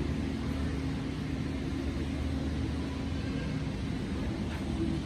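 Steady low rumble and hum of a large hangar-style exhibit hall's room tone, unchanging, with no distinct event.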